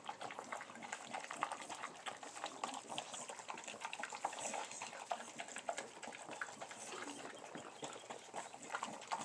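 A dog lapping up watery food: a steady, irregular run of quick wet licks and slurps.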